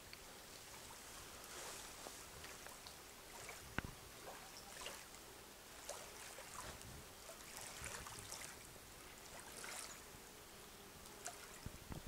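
Faint small waves lapping and trickling over a pebble shore, in soft irregular splashes, with a sharp click about four seconds in.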